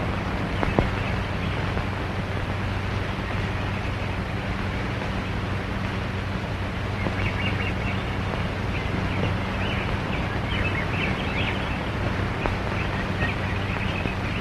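Steady hiss and low hum of an old 1930s film soundtrack, with short high chirps scattered through the second half.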